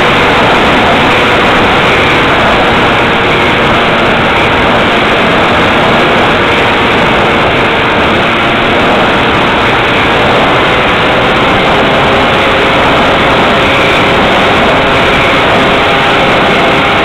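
Loud, steady rush of wind over the onboard camera of a Multiplex Xeno FPV flying wing in flight, with the faint whine of its electric motor and propeller holding a steady note that drifts slightly in pitch.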